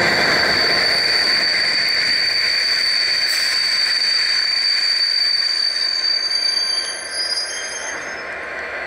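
A diesel-hauled train drag rolling away at low speed, its wheels giving a steady high-pitched squeal over the rumble of the stock. The squeal fades about six seconds in and the rumble eases as the train draws away.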